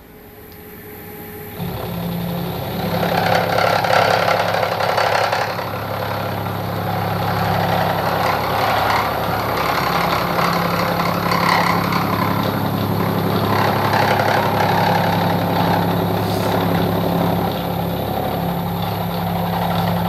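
Milling machine running, its end mill taking a heavy first cut into an aluminium block on a rotary table: a steady motor hum under a harsh, uneven cutting noise, starting about a second and a half in.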